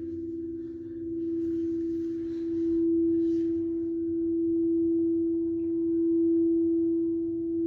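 Singing bowl ringing with a steady low hum and faint overtones, swelling and ebbing slowly in loudness.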